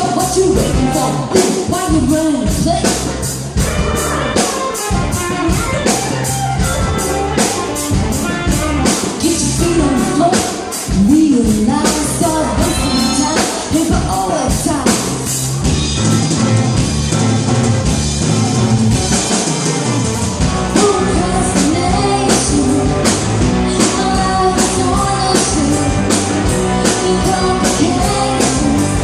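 A rock song with a steady drum-kit beat and a singing voice.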